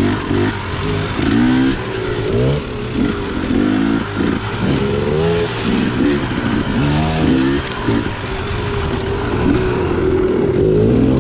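A KTM 300 XC's two-stroke dirt bike engine being worked on a trail, its pitch rising and falling again and again with quick throttle changes, then held steadier near the end.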